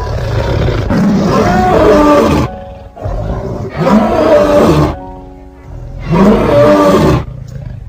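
Lion roaring, three long roars a second or so apart, the first the longest, over background music.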